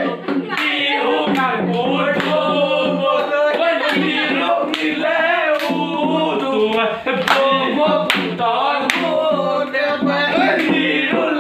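Several voices singing a Bihu song together, with sharp hand claps every second or so.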